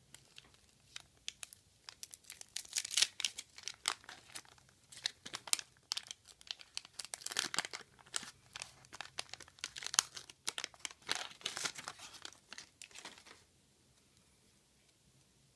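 Wax paper wrapper of a 1985 trading-card wax pack being torn and peeled open by hand: a long run of sharp crinkling and tearing that stops about two seconds before the end.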